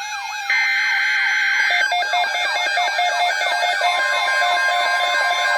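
Emergency Alert System broadcast on NOAA Weather Radio: harsh digital SAME header data bursts that end about two seconds in, then the weather radio's steady single-pitch alert tone starting about four seconds in. A rapid rising-and-falling siren-like warble runs under both.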